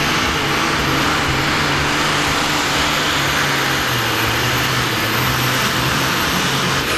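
Diesel engine of a blue pulling tractor running flat out under full load as it drags the weight-transfer sled, with a steady high whine over the engine. The whine starts to fall right at the end as the throttle comes off at the end of the pull.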